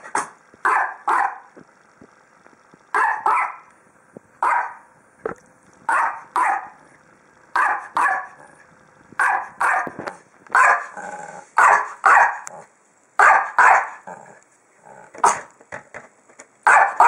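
Small dog barking in short, sharp barks, mostly in quick pairs, every second or two. It is barking at a red treat ball out of its reach.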